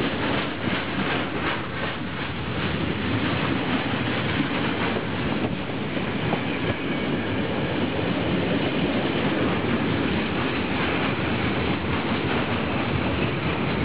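Mixed freight train of tank, covered and flat wagons rolling past close by: a loud, steady rumble of wheels on rail, with a quick clatter of wheels over the rail joints that is most distinct in the first few seconds.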